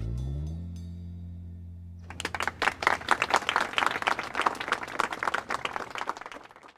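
A held closing chord of music fades, then about two seconds in a crowd breaks into dense applause that stops abruptly near the end.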